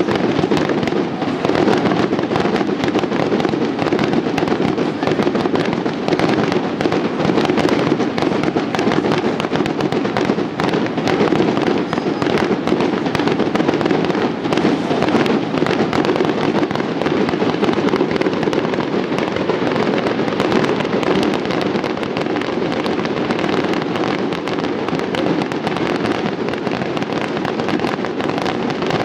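Fireworks display going off without a break: a dense, steady run of bangs and crackles.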